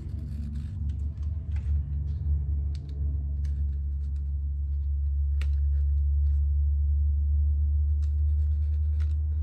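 A steady low hum with faint scattered clicks and rustles of hands working around a banjo rim, pulling away the strip of wet goatskin trimmed off the new head.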